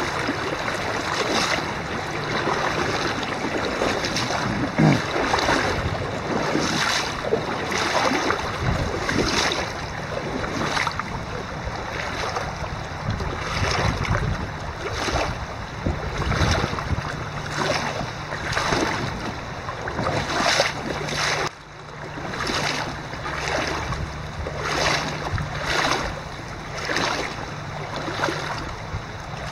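Shallow river water rushing and gurgling over a stony bed, heard close up, swelling in surges every second or two.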